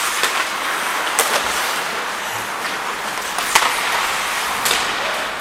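Ice hockey play: a steady scraping hiss of skates on the ice, broken by a few sharp clacks of sticks and puck, the loudest about three and a half seconds in.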